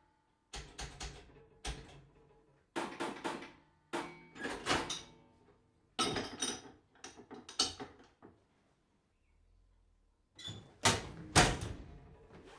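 Railway signalling equipment working: bursts of sharp mechanical clunks and clicks, several in quick succession, with brief pauses between groups and a short faint metallic ring after some knocks.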